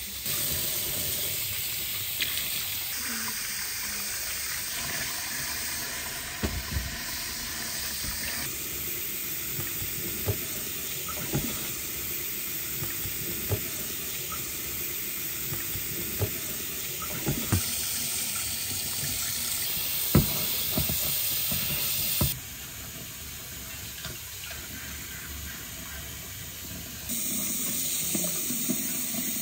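Water running steadily from a tap, with occasional light knocks; the running sound drops quieter for a few seconds about two-thirds of the way through.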